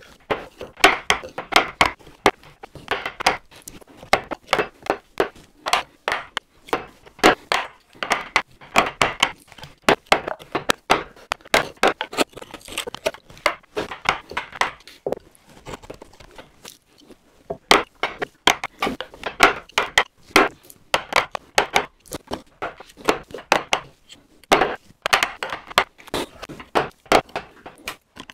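Mallet blows on a wood chisel, chopping waste wood out of a joint: a fast run of sharp wooden knocks, several a second, with a brief pause a little past the middle.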